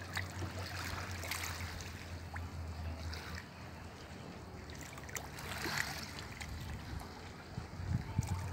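Gentle wavelets lapping and trickling on a pebble shore, with a low steady hum underneath that stops about three and a half seconds in.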